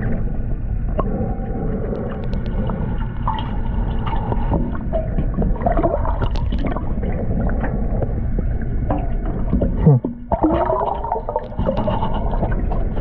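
Underwater sound heard by a camera below the surface: a steady low rumble with gurgling bubbles throughout, and a louder gurgling sweep of bubbles about ten seconds in.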